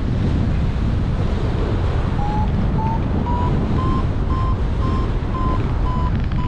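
Wind rushing over the microphone during paraglider flight. From about two seconds in, a variometer beeps about twice a second, its pitch slowly rising, the sign that the glider is climbing.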